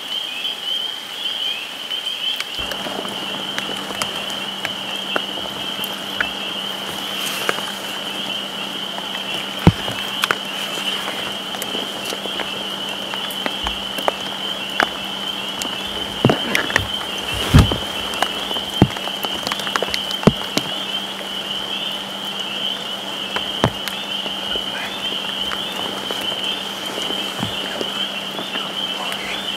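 Frog chorus, a steady high-pitched trilling, under rain falling on leaves, with scattered sharp ticks of drops. A faint low hum comes in about three seconds in.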